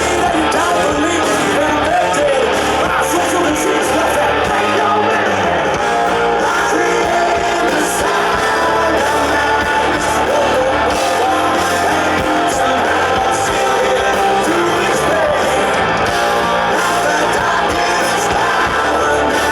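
Hard rock band playing live at full volume, a singer's vocals over electric guitars and drums.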